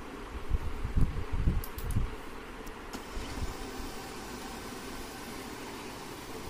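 HP LaserJet M1136 MFP laser printer switched on and starting up: low knocks and a few sharp clicks in the first three seconds, then a steady hum from its fan and mechanism.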